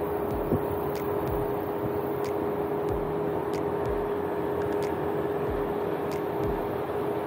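Ford Bronco 4-door Badlands driving on an off-road dirt and rock trail: a steady engine and drivetrain hum with a constant whine, low thumps every second or so, and scattered light clicks.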